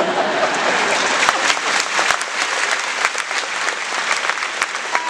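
Large crowd applauding steadily, a dense patter of many hands clapping at once.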